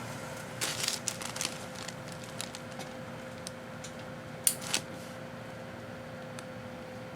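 Microwave oven running with a 25 lb dumbbell inside, a steady hum with a single tone. Scattered sharp clicks and crackles come over it, in a cluster about half a second in, and the loudest about four and a half seconds in.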